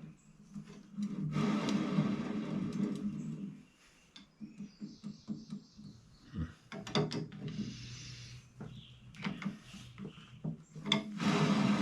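Bicycle bottom bracket being worked by hand: a rough rubbing, grating stretch early on, then scattered metallic clicks and knocks as the parts are handled and adjusted.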